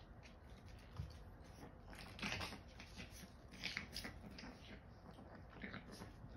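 Two Boston terriers chewing and scuffling on a hardwood floor: faint, irregular scratchy crunches and clicks of teeth and claws.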